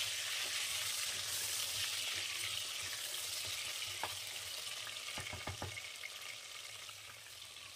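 Potato chunks sizzling as they shallow-fry in hot mustard oil in an aluminium pressure cooker, stirred with a wooden spatula. A few light taps of the spatula come a little past the middle, and the sizzle grows gradually quieter toward the end.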